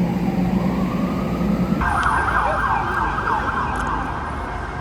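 Emergency vehicle siren: after a faint rising tone over a low hum, a loud siren cuts in about two seconds in, yelping rapidly up and down.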